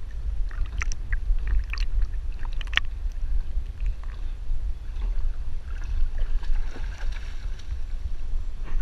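Water churning against a camera strapped to a swimming dog, heard as a steady low rumble with small splashes and drips from its paddling. A rush of water comes near the end as the dog climbs out onto the bank.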